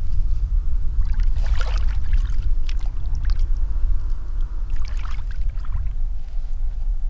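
Shallow pond water splashing and sloshing in two bouts, the first about a second in and the second near five seconds, over a steady low rumble.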